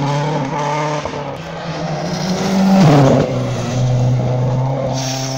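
Rally car engine at full throttle as the car approaches along the stage. The pitch climbs to its loudest point about three seconds in, drops sharply, then holds steady as the car keeps coming.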